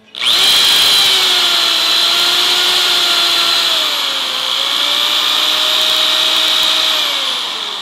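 Electric power drill sound effect whirring steadily. It starts abruptly, its pitch sags a little midway, and it winds down with falling pitch near the end.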